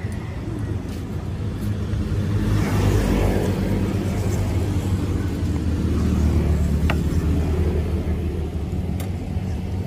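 Low, steady rumble of road traffic, with a vehicle passing that swells loudest about three seconds in.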